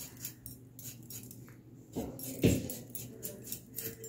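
A knife cutting a raw potato: a run of light, crisp clicks, with two knocks about two seconds in, the second the loudest.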